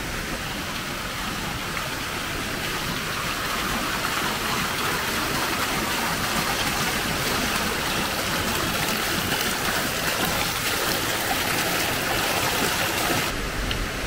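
Steady rush of water flowing through streams and small cascades, growing slightly louder a few seconds in.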